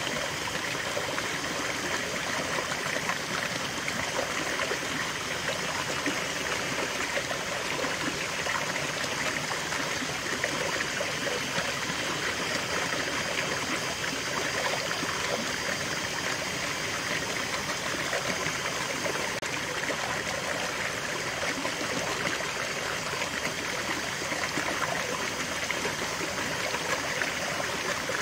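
Shallow rocky stream running steadily, water splashing down a small cascade between boulders into a pool.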